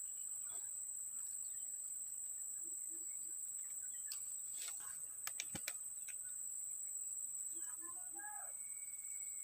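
Steady high-pitched drone of insects in the surrounding vegetation, with a few light clicks a little past halfway from the rod and catch being handled, and faint bird chirps near the end.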